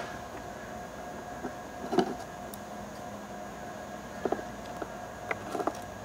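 A few light clicks and taps of a small screwdriver working a screw in a laptop's underside compartment: one about two seconds in, a pair a little after four seconds, and a short cluster near the end, over a steady faint hum.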